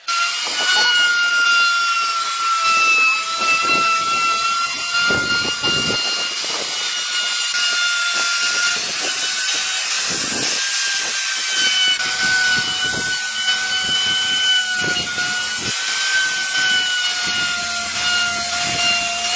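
Electric power tool cutting wood: a steady high whine that wavers slightly as the load changes, over a constant hiss of the cut.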